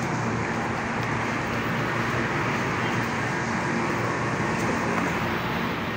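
Steady road-traffic noise with a constant low hum under it.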